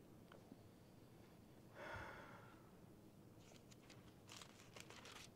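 Near silence, with a short soft breath about two seconds in and then several faint, crisp rustles of thin Bible pages being turned.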